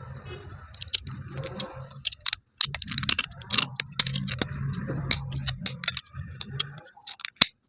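Broken slate pencil pieces crunched and rubbed together by hand. A run of sharp, irregular cracks and clicks sits over a low rubbing rumble. The rumble stops near the end, and one last crack follows.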